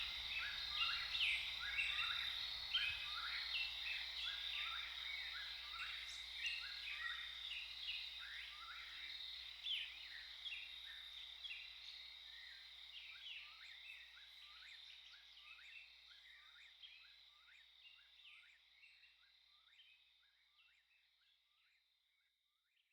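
Night-time forest ambience sound effect: a steady high insect drone with rapid, evenly repeated short chirping calls, fading out to silence about two-thirds of the way through.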